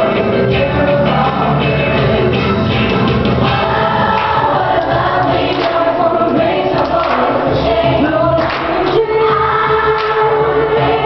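Loud, upbeat song with a choir singing.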